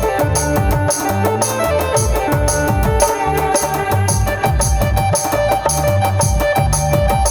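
Instrumental break of a folk-style band song: a steady drum beat with fast, even high percussion strokes under a held melody line, with no singing.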